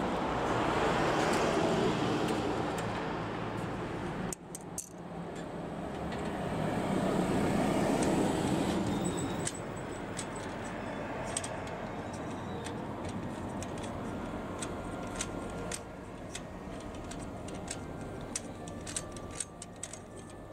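Rumble of passing traffic that swells and fades, then, from about ten seconds in, many sharp metallic clicks and taps as a screwdriver works at the bicycle's chain-case mount by the rear axle.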